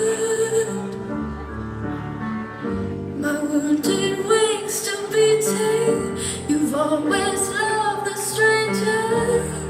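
A song playing: a woman's singing voice over a musical accompaniment.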